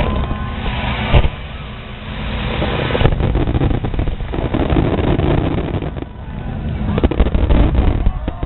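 Fireworks going off in a continuous barrage: deep booms and dense crackling overlapping, with the sharpest bursts packed together near the end.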